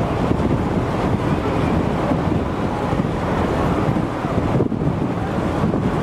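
Steady rushing background noise of a busy gymnastics hall, even throughout with no clear impacts or voices standing out.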